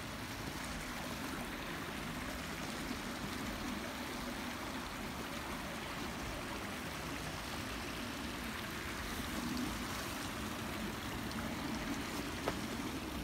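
A small stream running, a steady rush of flowing water, with one brief click near the end.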